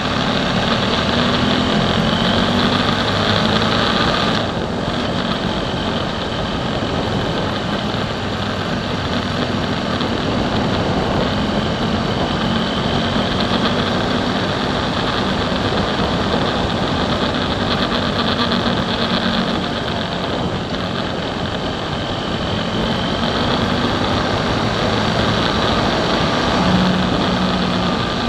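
Motorcycle engine running at road speed and pulling harder as the bike speeds up, with wind rushing over the camera. The engine note eases briefly about four seconds in.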